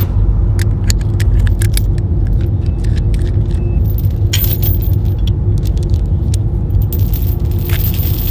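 Steel chain links clinking and rattling as the chain is handled and hooked onto a pickup's receiver hitch. The clinks come thick in the first half and again briefly near the end, over a steady low rumble.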